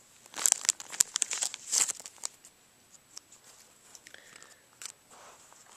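Small plastic package crinkling and tearing as it is handled and opened, in a rapid crackling run over the first two seconds, then a few light clicks and rustles.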